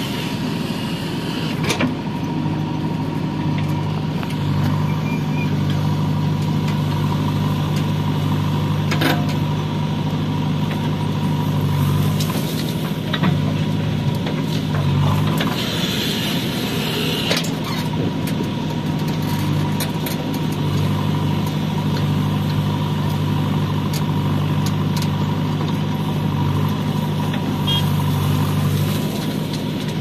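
Heavy machine's engine running steadily, its low hum shifting in strength now and then, with a few sharp clanks and a brief hiss about halfway through.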